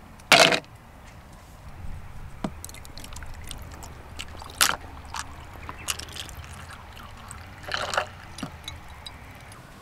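Freshly brewed coffee poured in a thin stream over ice in a clear cup, trickling steadily. The ice clicks and cracks now and then, with one sharp, loud clink just after the start.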